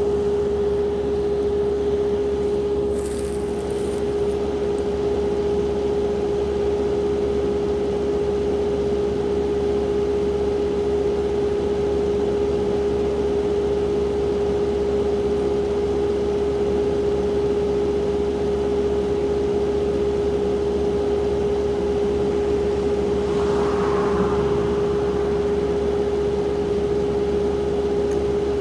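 Tracked skid steer running steadily, its engine holding one unchanging droning tone.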